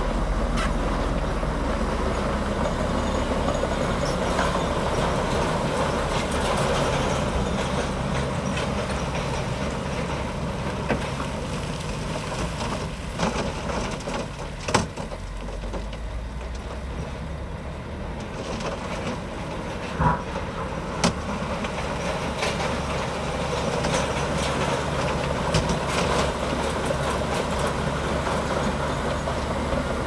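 Komatsu D65P crawler bulldozer's diesel engine running under load while it spreads rock. The engine eases off somewhat in the middle and builds back up later, with a few sharp knocks along the way.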